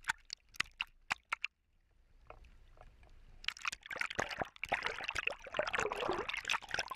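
Fast-running muddy floodwater sloshing and splashing against a camera held at the water's surface. A few sharp splashes come first, then a brief lull, then a dense crackling wash of water from about halfway through.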